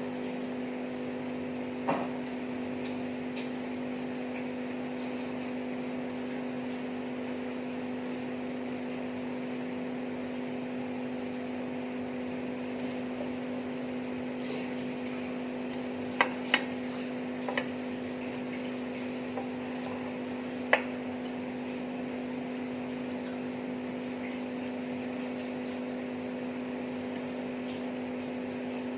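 A steady low hum with a few short, sharp clicks of eating: one about two seconds in, a small cluster around the middle, and one more soon after.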